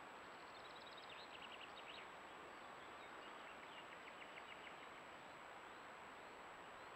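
Faint birdsong over steady hiss: two rapid trills of short repeated high notes, one about a second in and another from about three to five seconds in. A thin, steady high-pitched tone runs underneath.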